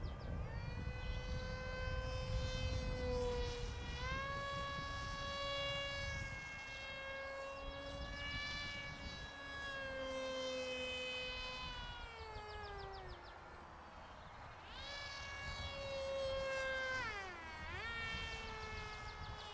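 Buzzing whine of a radio-controlled foam model jet's electric motor and propeller in flight, rising and falling in pitch as the throttle changes, with a steep dip and recovery near the end.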